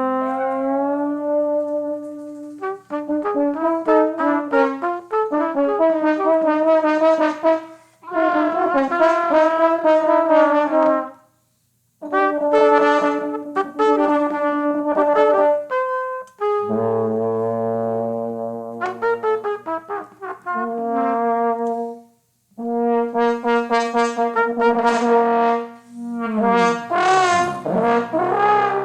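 Trumpet and trombone improvising together, a free improvisation meant to express disgust. They play phrases of held and repeated notes broken by short pauses, with a low held passage about two-thirds of the way in and a wavering, sliding smear of pitch near the end.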